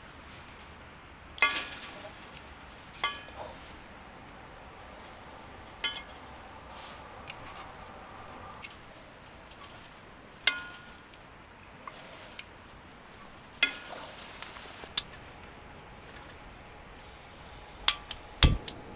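Metal cooking gear clinking against a cast-iron skillet and mesh grill rack: about five sharp clinks spread out, each ringing briefly. Near the end come a few louder clicks and a knock as a small gas-canister camping stove is handled.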